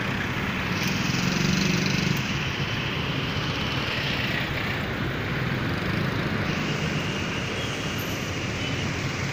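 City street traffic noise: a steady hum of cars and buses driving past, swelling louder for about a second shortly after the start as a vehicle passes close by.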